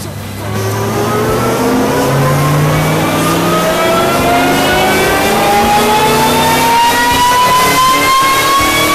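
Supercharged 2008 Roush 427R Mustang V8 making a wide-open-throttle pull on a chassis dyno. It comes on hard just after the start, then the engine note and the supercharger whine climb steadily in pitch as the revs rise.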